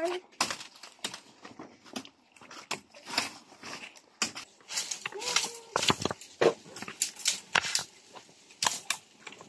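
Dry leaves and twigs crackling and rustling in irregular snaps as branches in dry undergrowth are pulled and broken by hand.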